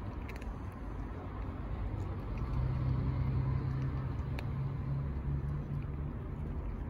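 Car engine running nearby: a steady low rumble, with a low hum that swells in about two and a half seconds in and eases off near the end. A few faint clicks sound over it.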